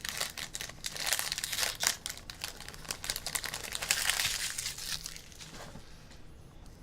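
Plastic wrapping on a box of trading cards being torn open and crinkled, a dense crackling that dies down about five seconds in.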